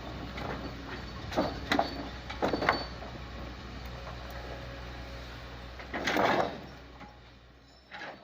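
A toy excavator being worked: a steady mechanical whirr with a few sharp plastic clicks and knocks, a louder rattling burst about six seconds in, then fading away.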